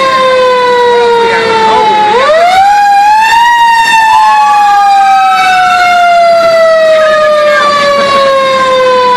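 Fire engine siren sounding loudly inside the cab. Its pitch glides slowly down, is pushed back up quickly about two seconds in, then winds slowly down again, with a second siren tone rising and falling over it in the middle.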